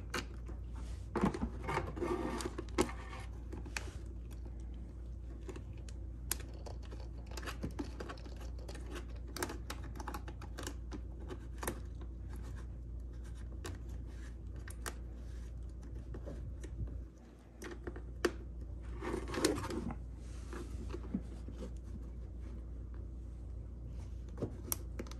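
Small clicks, scratches and rustles of hands working plastic and metal parts: a fuel selector valve's retaining nut being threaded on and hand-tightened through a generator's plastic side panel. A steady low hum runs underneath.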